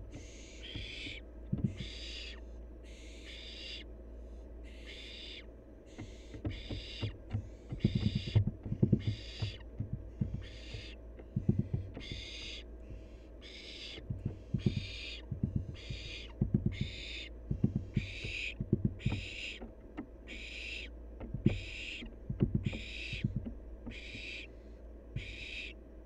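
Young barn owl's hissing begging call ('snoring'), a short breathy hiss repeated slightly faster than once a second, the food-begging call of a fledgling waiting to be fed. Scattered soft knocks and scuffs against the wooden nest box come through among the hisses and are the loudest sounds.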